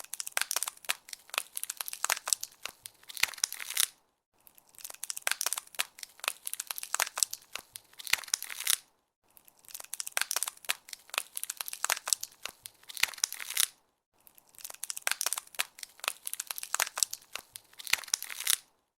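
Ice crackling as it freezes: dense, rapid crackles and snaps in bursts of about four seconds, broken by short silent gaps, four times over.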